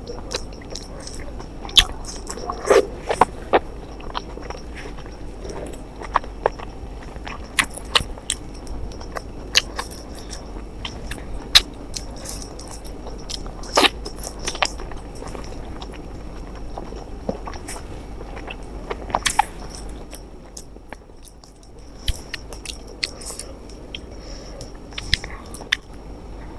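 A person eating close to the microphone: chewing and biting, with many irregular wet smacks and clicks. A faint steady high whine runs underneath.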